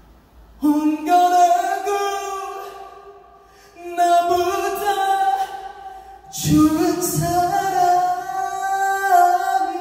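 A male ballad singer singing solo through the concert hall's sound system: three long, held phrases, each swelling and then fading, with the voice far louder than anything else.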